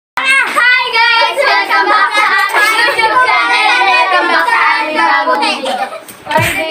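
A group of young girls singing together, their voices close and loud, with a dull thump on the microphone near the end.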